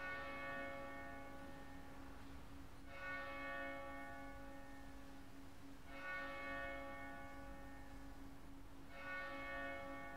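A single church bell tolling slowly, four strokes about three seconds apart, each ringing on and fading before the next.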